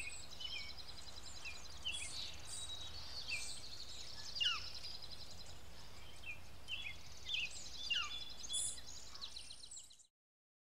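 Several songbirds singing together: overlapping chirps, short downward-sliding whistles and a rapid high trill. It fades out over the last second or so and gives way to silence shortly before the end.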